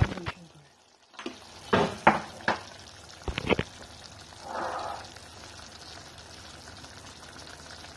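Ground beef, carrots and peas in a tomato-ketchup sauce simmering in a pot with a steady low sizzle. A handful of sharp knocks and clicks come about two and three and a half seconds in, with a short burst of louder sizzling just before five seconds.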